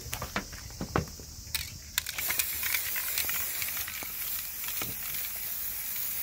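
Aerosol spray can of body-colour touch-up paint spraying in a steady hiss, starting about two seconds in. The paint is being laid over a dried primer coat. A few sharp clicks come before the spraying starts.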